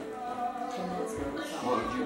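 Recorded music with a singing voice playing, with a couple of low thumps about a second and a half in.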